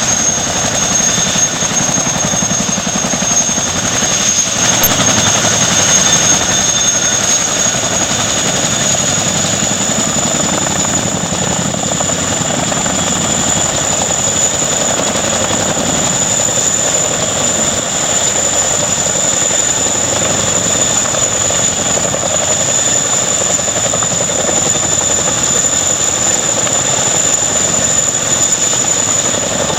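Helicopter running steadily: turbine whine over dense rotor and engine noise. The whine rises slightly in pitch about seven seconds in.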